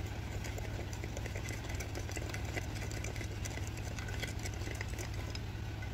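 Plastic spoon stirring yeast and sugar into warm water in a glass mug, with faint scattered ticks, over a steady low hum.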